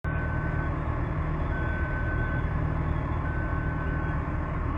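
Road roller's diesel engine running steadily, with its warning alarm sounding three long, steady beeps about a second and a half apart.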